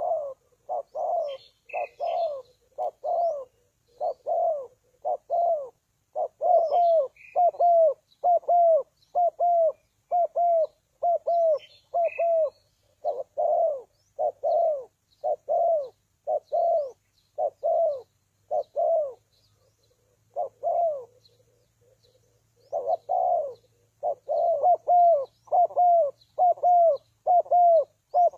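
Spotted dove cooing: a long, regular run of short low coo notes, about two a second, with a short pause about two-thirds of the way through before the cooing resumes.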